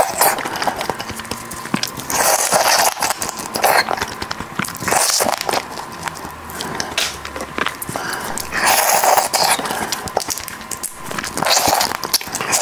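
Eating sounds from spicy marinated crab: about four loud wet slurps as the meat is sucked from pieces of shell, with small crackles and clicks of shell and chewing in between.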